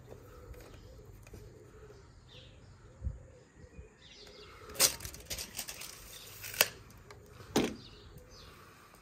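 A tape measure being handled on wooden decking: a soft knock about three seconds in, then three sharp clicks a second or two apart as the tape is locked, retracted and set down. Faint bird chirps sound in the background.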